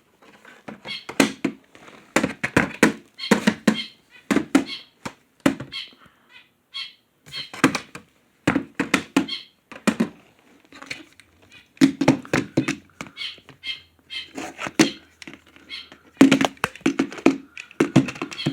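Horse hoofbeats of running horses: sharp knocks in quick irregular clusters, with short pauses between runs.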